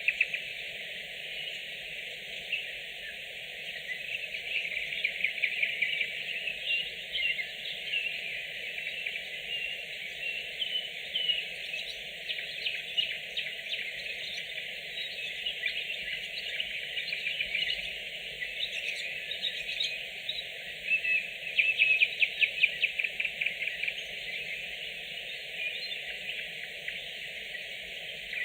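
Nightingales singing: varied song of whistles and rapidly repeated notes, with fast trilled runs about a third of the way in and again about three quarters of the way in.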